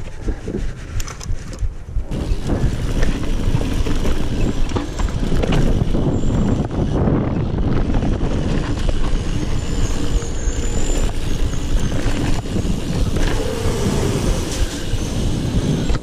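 Riding noise of a Giant Trance Advanced 1 mountain bike on a dirt trail, heard from a GoPro on the rider: tyres on loose dirt and the bike rattling over bumps in a constant rough rumble. It grows louder over the first few seconds.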